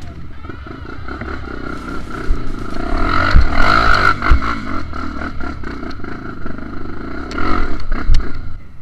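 Honda XR 250 Tornado's single-cylinder four-stroke engine revving on a trail ride. It is loudest about three to four seconds in and again near the end, with knocks and clatter mixed in.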